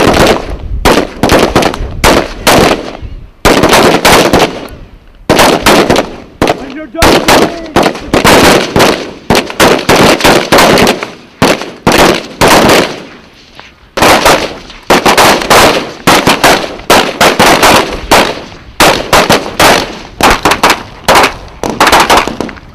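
Rifle fire from several shooters on a firing line: sharp shots in quick, overlapping strings with short pauses between volleys.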